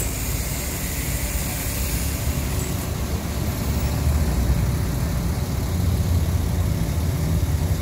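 Crane truck's engine running steadily at idle, a continuous low rumble.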